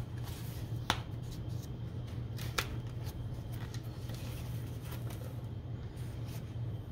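A small product box and its insert being handled and searched through: light rustling and scraping with two sharp clicks, about one second and two and a half seconds in, over a steady low hum.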